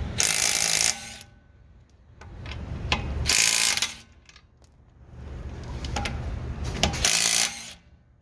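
DeWalt DCF901 12 V half-inch cordless impact wrench hammering in three short bursts, about three and a half seconds apart, on a wheel lock nut. Quieter running sound rises before each burst.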